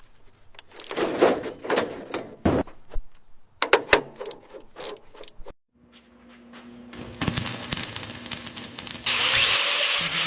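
Workshop noise: a rapid run of sharp knocks and clicks from tools being handled. After that comes a steady machine hum, which turns into a louder hissing whir about nine seconds in.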